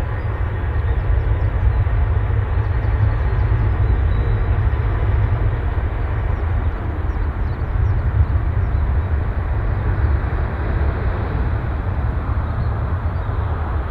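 Boeing 787-9 airliner's jet engines at takeoff thrust, a loud, steady deep rumble as the jet departs.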